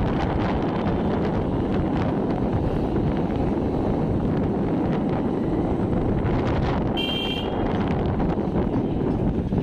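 Steady road-vehicle rumble with wind buffeting the microphone, and a short high-pitched beep about seven seconds in.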